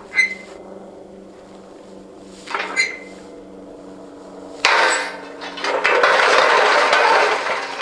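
Large steel whipper trebuchet firing: two short clanks from the trigger, then about four and a half seconds in a sudden bang and a couple of seconds of loud metal crashing and rattling as the counterweighted machine releases and falls backward, the wrong way. The counterweights were not hanging far enough over the axle, and the fall bent the throwing arm and a lower I-beam linkage.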